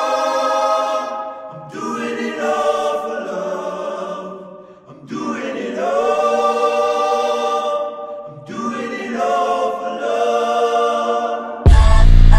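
Music: a layered choir sings long held chords in four phrases with short breaks between them. Near the end, a heavy electronic bass beat comes in suddenly and loudly.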